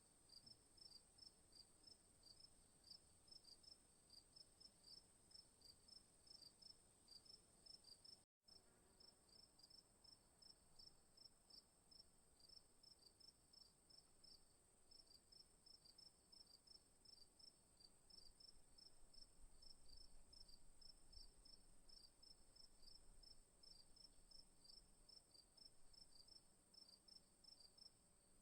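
Faint night chorus of crickets: a steady high trill with a rhythmic chirping of several chirps a second over it. It breaks off for a split second about eight seconds in.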